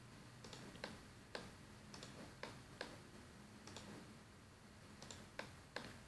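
Faint computer mouse clicks, about a dozen at irregular intervals, as edges are picked one after another in CAD software.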